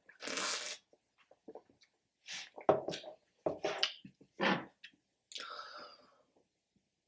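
A person drinking: a loud sip of Slurpee slush through a straw near the start, then several sharp knocks as the plastic cup and a glass beer bottle are handled on the table, and swallows and a breathy exhale from the bottle near the end.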